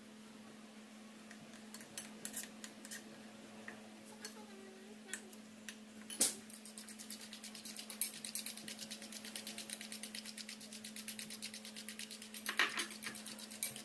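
Metal fork whisking egg whites in a ceramic bowl, with rapid, even clinks against the bowl from about six seconds in; before that a spoon stirs a thick chocolate mixture with only occasional clinks. A steady low hum runs underneath.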